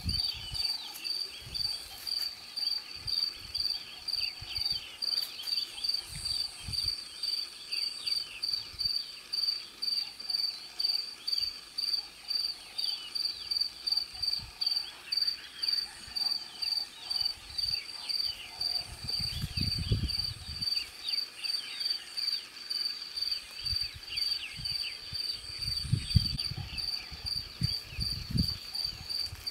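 A cricket chirping steadily: one high note pulsed about two to three times a second without a break. A few low rumbles come through in the second half.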